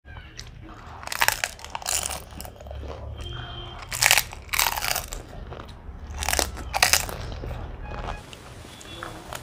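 Crisp puri shells of dahi golgappa (doi fuchka) being bitten and chewed: a string of loud crunches with quieter chewing between them.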